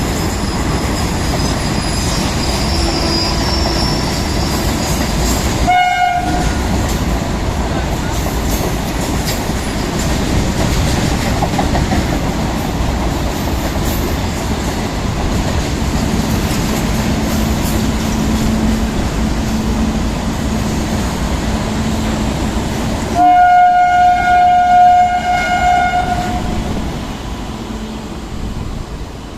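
Train running through the station at speed, a continuous rumble and clatter of wheels on the track. The locomotive horn sounds briefly about six seconds in and gives a long blast, the loudest sound, from about twenty-three to twenty-six seconds. The rumble fades near the end.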